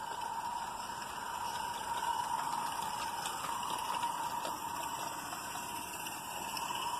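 Merlin Mayflower live-steam garden railway locomotive running with its wagons, giving a steady steam hiss that grows a little louder about two seconds in as it passes close. A few faint clicks can be heard.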